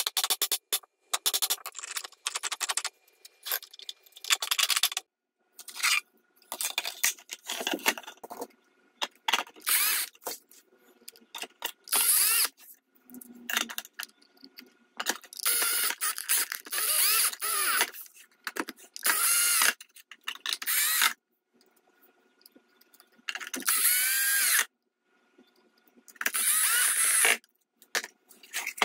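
3D-printed plastic tank hull parts and their gearbox being handled and fitted together by hand: short bursts of clicking and rattling, one to two seconds each, with brief pauses between.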